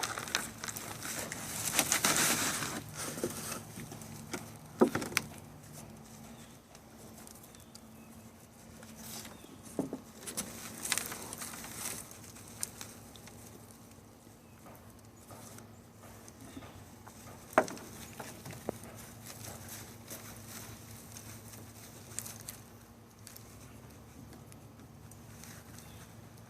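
Potting soil spilling and being sifted by hand as a container of sweet potatoes is tipped out and picked through: a spell of rustling, pattering soil a couple of seconds in, then scattered light rustles and taps, with one sharper knock about two-thirds of the way through.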